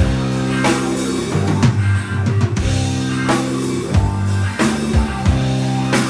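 Rock band playing live through a stage PA: electric guitar and bass over a drum kit, with a heavy bass line and drum hits about every two-thirds of a second.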